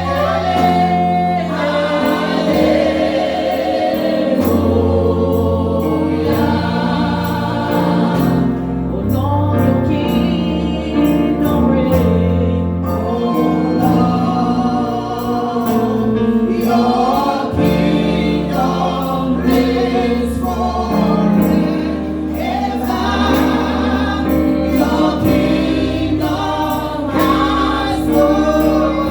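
Choir or congregation singing a gospel worship song with band accompaniment and a steady bass line.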